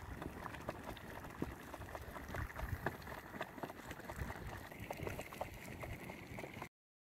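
Tomato paste bubbling as it cooks down, with many irregular small pops; it cuts off suddenly near the end.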